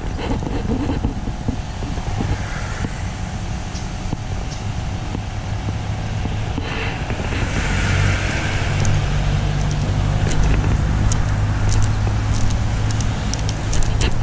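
Low, steady engine rumble that grows louder through the second half, with scattered light clicks near the end.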